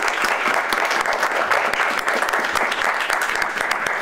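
Audience applauding, many people clapping steadily at the end of a talk.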